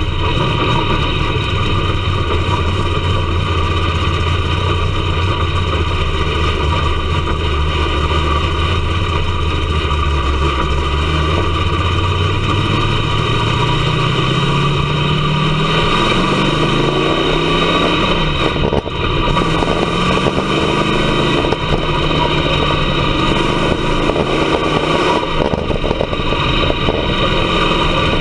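Dirt-track race car's engine heard from inside the cockpit, running low and steady, then revving up about twelve seconds in, its pitch rising and then swinging up and down.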